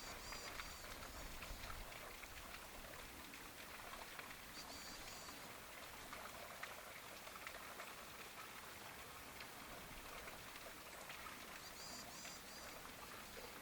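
Faint light rain pattering, with a short high-pitched chirping call repeated three times: at the start, about five seconds in, and near the end.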